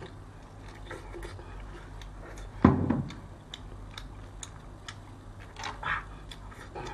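Cooked crayfish being eaten: sucking and chewing at the shells, with many small clicks and cracks, and shells clattering as a hand picks through the pile. One loud thump comes about two and a half seconds in.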